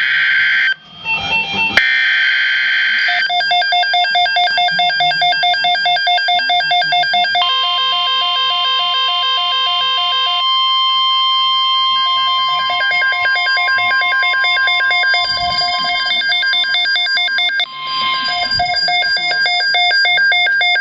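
Emergency Alert System alert opening: a couple of seconds of harsh, buzzy digital data bursts (the SAME header), then rapidly pulsing electronic alarm beeps. A steady single-pitch attention tone joins about seven seconds in and cuts off about ten seconds later.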